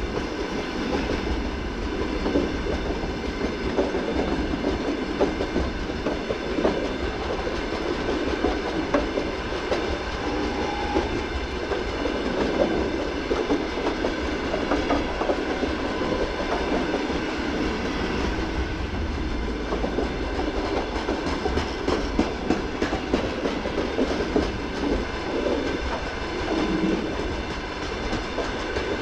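Freight train of open-top gondola wagons rolling past, a steady rumble with frequent wheel clicks over the rail joints.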